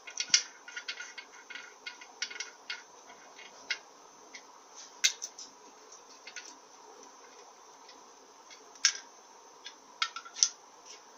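Metal clicks and clinks of a socket being turned by hand on the steel bolts of a cast-iron Powerglide front pump, snugging them down onto a new gasket. The clicks are irregular and light, with sharper ones about a second in, near five and nine seconds, and near the end.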